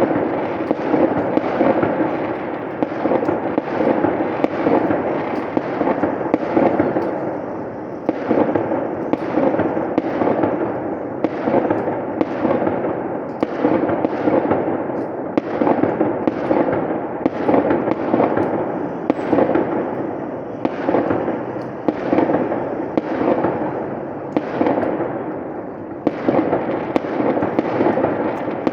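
Fireworks display going off in a continuous barrage: dense crackling with sharp bangs about one or two a second.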